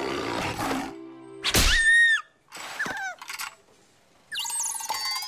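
Cartoon music and slapstick sound effects: a noisy crash-like stretch, then a sharp hit with a bending whistle-like tone about halfway through, and a short musical flourish with sliding notes near the end.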